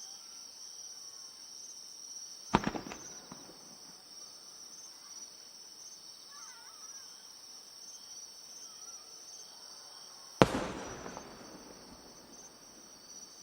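Two large shakudama (30 cm) aerial firework shells bursting, each a single sharp boom trailing off in a rumbling echo, about eight seconds apart. Crickets chirr steadily throughout.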